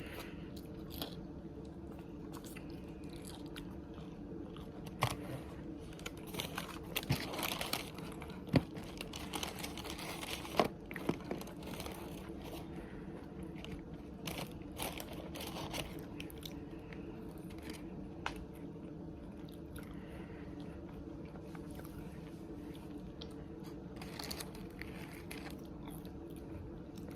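Someone chewing and biting fast food (fries and boneless chicken wings) close to the microphone, with scattered crunches and small clicks, most of them in the middle and a few more near the end, over a steady low hum.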